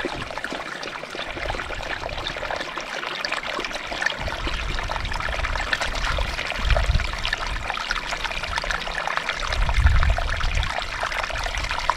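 Wind rushing over the microphone with a steady crackling hiss, buffeting it in low rumbling gusts about two-thirds of the way in and again near the end.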